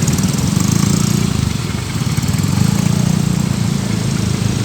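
A vehicle engine running steadily at idle or low speed, a low pulsing rumble, under a steady hiss.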